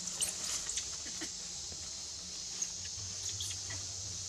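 A steady high insect buzz of the forest, with scattered short, high-pitched squeaks and chirps: several in the first second and a few more around three seconds in.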